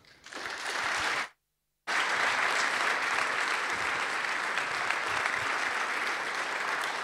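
Audience applauding, broken about a second in by a half-second gap of dead silence.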